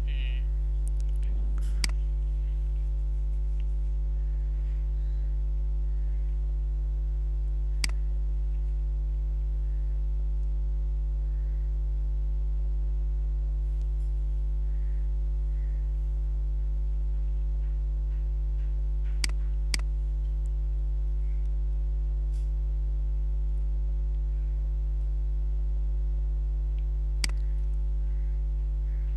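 Steady electrical mains hum, with about five sharp mouse clicks scattered through it, two of them in quick succession.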